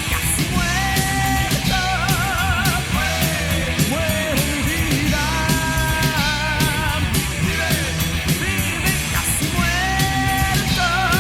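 Heavy metal band playing: distorted electric guitars, bass and drums with steady cymbal hits, and held high notes that waver with vibrato and bend between pitches.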